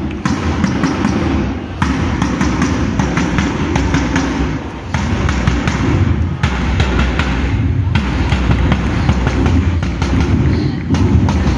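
Davul, the large Turkish double-headed bass drum, beaten with repeated heavy thumps.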